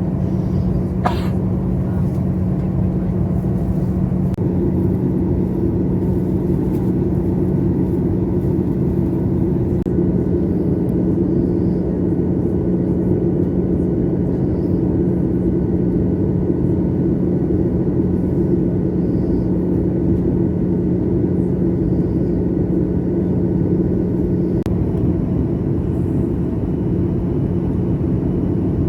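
Steady airliner cabin noise during the approach: the rush of engines and airflow with a steady low hum. A brief sharp sound stands out about a second in.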